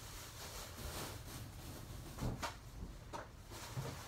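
Faint household knocks and clunks of someone fetching scissors, a handful of short ones in the second half over quiet room hiss.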